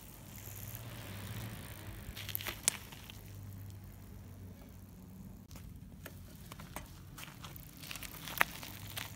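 Child's mountain bike rolling over asphalt with loose grit, with scattered clicks and rattles; two sharp clicks stand out, about two and a half seconds in and near the end.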